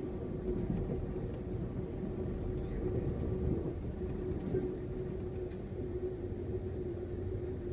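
Steady low rumble of an Amtrak Superliner passenger car in motion, heard from inside the car, with a steady hum running under it and a few faint ticks from the running gear.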